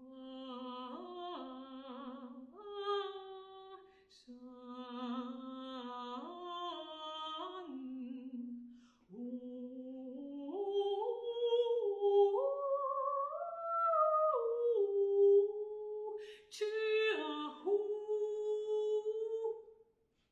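Solo alto voice singing unaccompanied, holding notes that move in small steps with a slight vibrato. It stays low for the first eight seconds, then climbs step by step to its highest notes about two-thirds of the way through before settling lower. There is a sharp attack about sixteen seconds in, and the voice ends just before the close.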